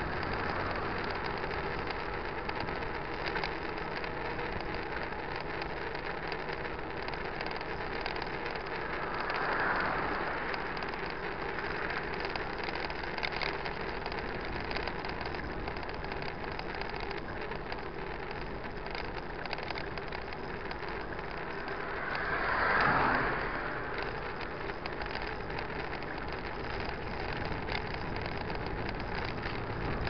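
Road traffic heard from a moving mountain bike: a steady rush of road and wind noise. One vehicle swells past and fades about ten seconds in, and another, louder, near twenty-three seconds.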